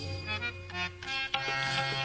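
Kirtan accompaniment between sung lines: sustained harmonium notes with sharp tabla strokes and no singing.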